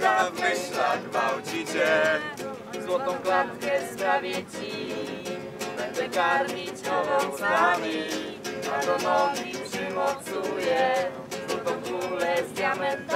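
Acoustic guitar playing, with a voice singing along.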